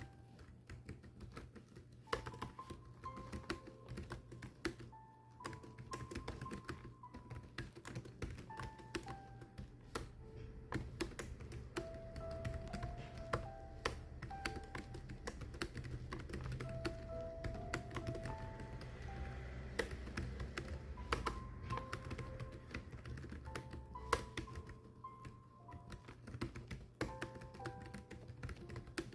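Keys being typed in a quick, irregular stream of clicks, over a slow background melody.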